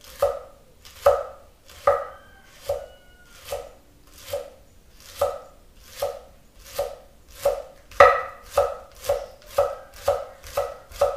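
Chef's knife slicing a rolled bundle of collard green leaves into fine chiffonade, each stroke ending in a knock on the wooden cutting board. The strokes come about one a second, then speed up to about three a second near the end.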